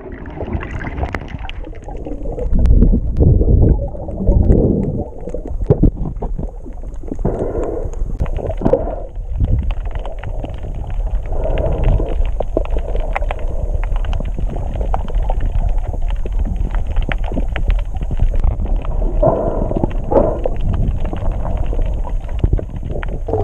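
Muffled underwater sound picked up by a camera in a waterproof housing: a low rush of moving water with gurgling bubbles and scattered crackling clicks. The rush is loudest about three to four seconds in.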